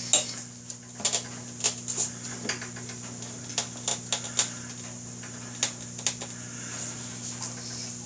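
A tubeless motorcycle tire being worked by hand onto a wheel rim: irregular clicks and taps as the rubber bead and tools knock against the rim, over a steady low hum.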